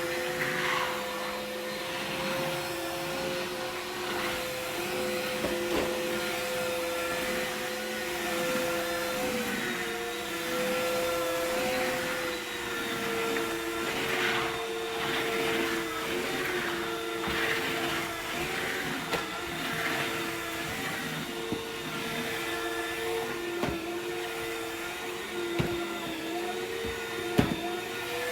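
Dreame wet/dry vacuum mop running steadily with a motor hum whose pitch dips slightly now and then, sucking up spilled drink from the floor with patches of wet hissing and a few sharp clicks.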